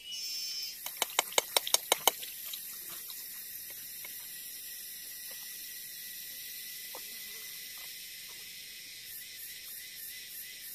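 Steady high-pitched chorus of forest insects, with a quick run of about seven sharp knocks about a second in.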